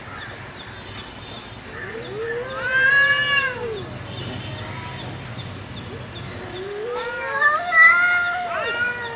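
Two cats yowling in a fight standoff. There are two long, wavering yowls that rise and fall in pitch: one about two seconds in, and a longer one near the end, where two voices overlap.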